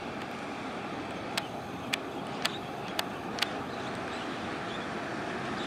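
Steady outdoor rushing background noise across a harbour, broken by five sharp ticks about two a second, starting a little over a second in.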